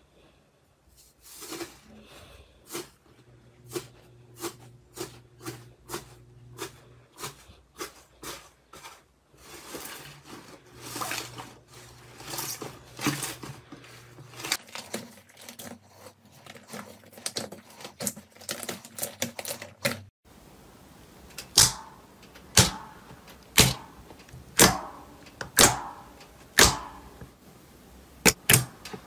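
Hands squishing and pressing slime, with many crisp, irregular clicks and crackles from the light-purple iceberg slime. About two-thirds through, the sound switches to louder, sharper pops about once a second as a glossy blue slime is poked and folded.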